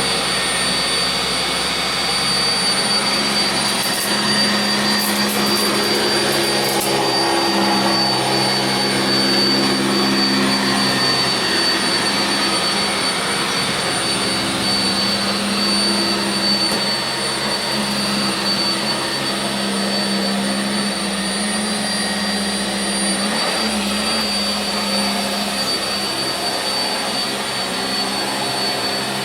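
Sanitaire SC679j commercial upright vacuum running steadily on carpet, its motor giving a constant high whine, with the brushroll and airflow note shifting slightly as it is pushed and pulled in slow passes. A few faint clicks or rattles come about four to seven seconds in.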